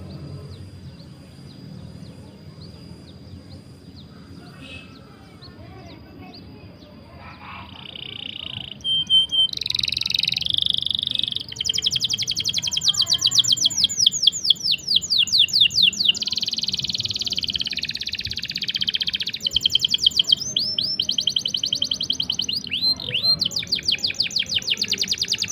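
Canary song: after a quiet start with only a faint steady high tone, loud singing begins about eight seconds in with buzzy notes, then long fast rolling trills of rapidly repeated sweeping notes, phrase after phrase.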